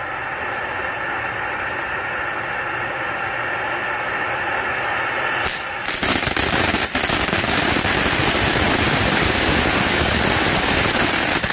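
Proud Peacock ground fountain firework spraying with a steady hiss. About six seconds in it turns louder, with dense crackling, and it stops abruptly at the end.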